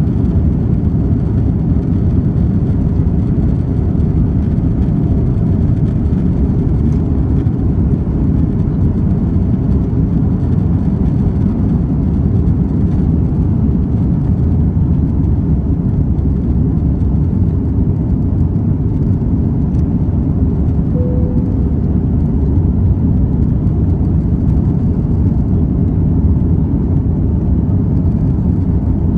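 Jet airliner's engines at takeoff power heard from inside the cabin: a steady, deep rumble with rushing noise as the plane rolls down the runway and climbs away.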